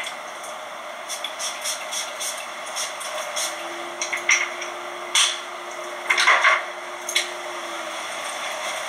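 A perfume spray bottle being pumped a few times, short hissing spritzes about five, six and seven seconds in, with small handling clicks, over a steady background hiss.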